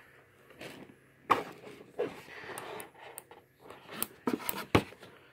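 Handling noise from plastic over-ear headphones being moved around in the molded pulp tray of their box: a few sharp clicks and knocks, the loudest about a second in and a cluster near the end, with rustling and scraping in between.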